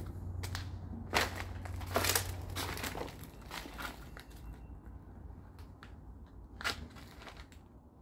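Footsteps crunching over paper and debris strewn on the floor: irregular crunches and crinkles, the loudest about one and two seconds in, fewer and quieter later.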